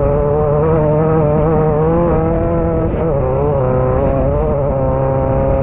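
Class 9 off-road race car's engine heard from inside the car, running hard at high revs, its pitch wavering up and down as the throttle is worked and holding steadier near the end, over a constant low rumble.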